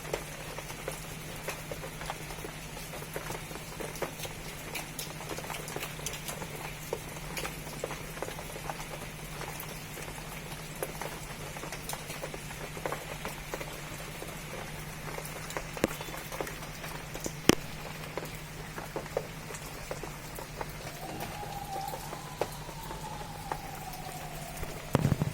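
Rain falling, with many scattered drops pattering and ticking irregularly over a steady low hum. Near the end a faint tone rises and then slowly falls.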